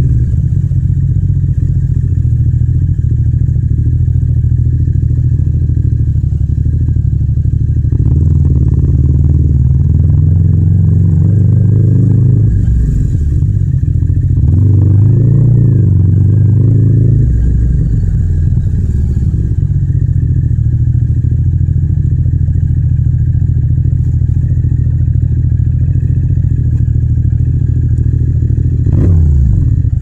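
Yamaha MT-07's 689 cc parallel-twin engine running at low road speed, recorded raw with no wind noise. Its pitch rises and falls twice in the middle as the throttle is opened and rolled off.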